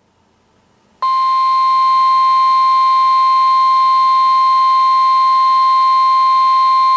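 NOAA Weather Radio 1050 Hz warning alarm tone from an Oregon Scientific WR-3000 weather radio's speaker. After faint static hiss it comes in loud about a second in and holds as one steady tone for about six seconds, alerting that an emergency warning is about to be read.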